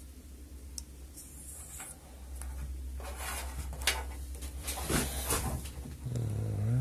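Handling noises: soft rustles and light knocks as a battery wire is handled and a soldering iron is picked up, over a steady low hum. A brief low murmur, like a voice, comes in near the end.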